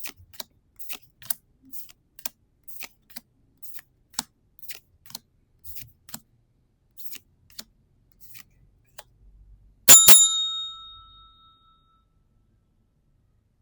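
Trading cards being flicked through one by one, making irregular soft clicks. About ten seconds in comes a loud bell-like ding, struck twice, that rings for about two seconds.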